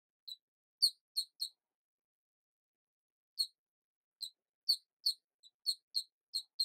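About a dozen short, high-pitched squeaks: a quick cluster of four, a pause of nearly two seconds, then a faster run of squeaks through the rest.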